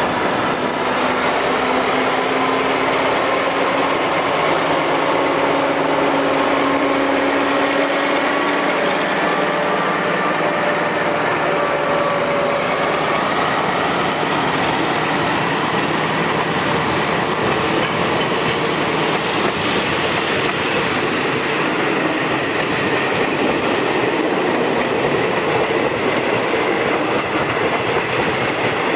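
Alstom AD24C diesel-electric locomotive's engine running as it passes, its tone fading out about ten seconds in. Then comes the steady rolling noise of the passenger carriages going by on the rails.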